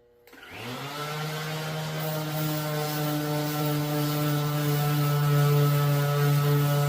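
Battery-powered electric sander switched on about a quarter second in, spinning up to speed within a second, then running steadily with a hum and a hiss as it sands the car's paint with 320-grit paper.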